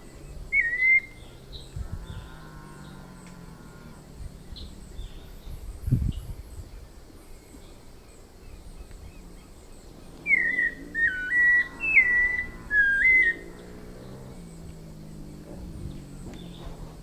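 White-necked thrush singing: clear whistled notes that slide up and down, a short phrase just after the start and a longer phrase of four or five notes about ten seconds in. Faint high chirps sound in the background, and there is a single dull thump about six seconds in.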